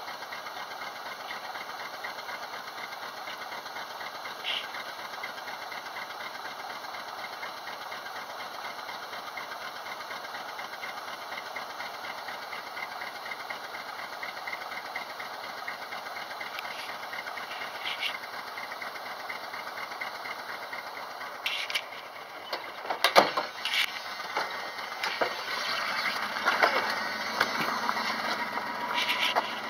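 A small motor or engine runs steadily with a fast, even pulse. In the last several seconds come sharp knocks and rubbing from the camera being handled, the loudest knock about 23 seconds in.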